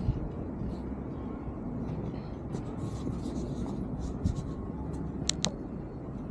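Street ambience dominated by a steady low rumble of road traffic, with scattered light ticks and two sharp clicks a little after five seconds in.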